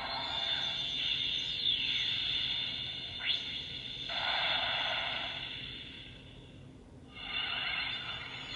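Bandai Proplica Sailor Moon moon wand toy playing its electronic 'Moon Healing Escalation' sound effect, the silver-crystal version, through its small speaker. It is a sparkling, shimmering sound with a falling sweep and then a quick rising sweep. It dies down about six to seven seconds in, then a new shimmer starts.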